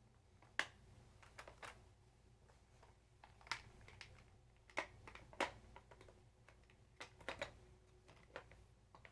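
Hard plastic parts of a Hungry Hungry Hippos game clicking and tapping against each other as they are fitted and slid into their retention tabs: about a dozen scattered sharp clicks, some in quick pairs.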